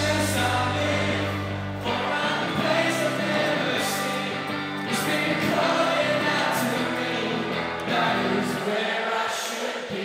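Live rock band playing with a male lead singer, many voices joining in the singing; the deep bass drops out about two seconds in, and the low end thins out again near the end.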